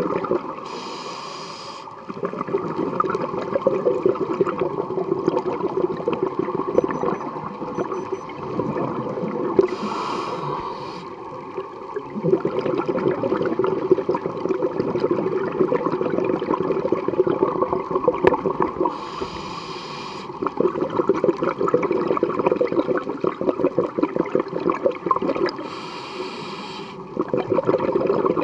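Scuba diver breathing through a regulator underwater: four short hissing inhales about eight to nine seconds apart, each followed by a long bubbling exhale.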